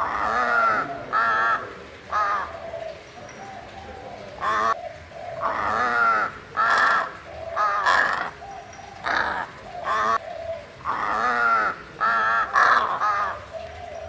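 A crow cawing repeatedly: about a dozen calls at irregular intervals, most short, a few drawn out to nearly a second.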